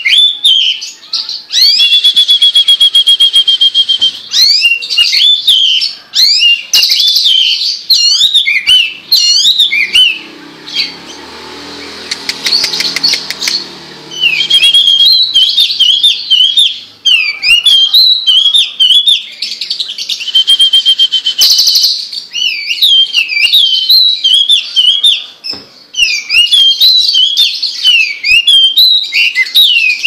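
Caged hwamei (melodious laughingthrush) singing loudly: a varied song of whistled phrases, fast trills and rapidly repeated notes, with a quieter stretch around the middle.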